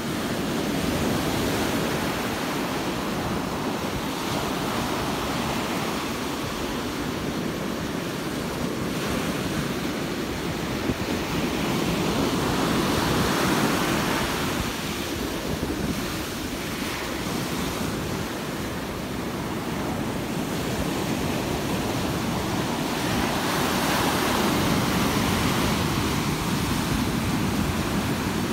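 Ocean surf: small waves breaking and washing up onto a sandy beach, a continuous rush of foam that swells and eases as each wave breaks and runs in.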